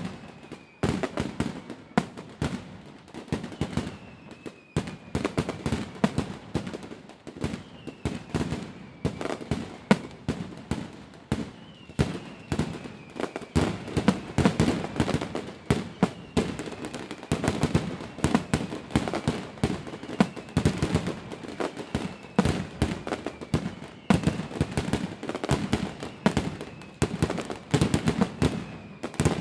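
Fireworks show: a dense, continuous barrage of aerial shell bursts, rapid pops and bangs overlapping one another. A faint falling whistle recurs every few seconds.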